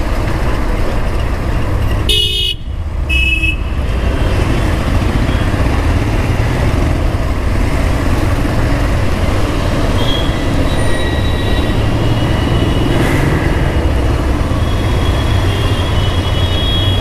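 Bajaj Pulsar 150's single-cylinder engine running at low speed in stop-and-go traffic, under a steady low rumble. A vehicle horn toots twice about two seconds in, and fainter horns sound again near the end.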